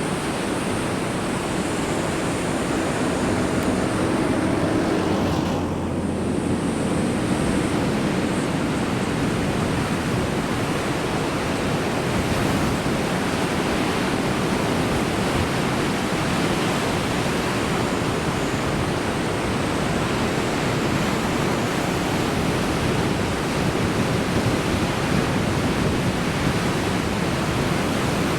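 Heavy surf from large typhoon swells breaking continuously along a rocky coast, heard as a steady, unbroken wash of noise.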